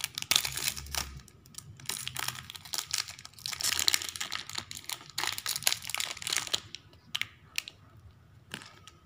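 Crinkly plastic toy wrapper packet being torn open and crumpled by hand: a dense crackle for about six and a half seconds, then only a few scattered crinkles.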